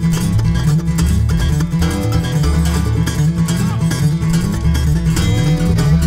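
Bluegrass band playing live: fast picked acoustic guitar and other plucked strings over a steady bass line.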